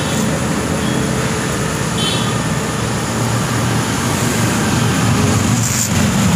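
Steady road traffic passing on a highway: a continuous low rumble of engines and tyres.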